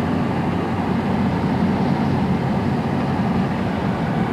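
Steady drone of a van's engine and tyres on the road, heard from inside the cabin while driving.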